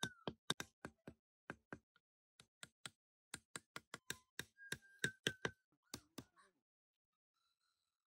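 A run of sharp, irregular knocks or taps, two to four a second, that stops about six and a half seconds in. A thin, high, wavering whine sounds briefly at the start and again around five seconds in.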